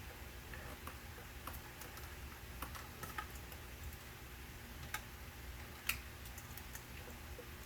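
Light, irregular plastic clicks and ticks of hands handling the camera cable and spiral wrap, with one sharper click about six seconds in, over a faint steady low hum.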